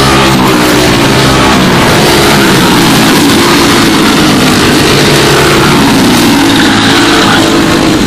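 Several racing karts with Briggs & Stratton Animal single-cylinder four-stroke engines running close by, overlapping engine notes falling and rising in pitch as they go through a corner.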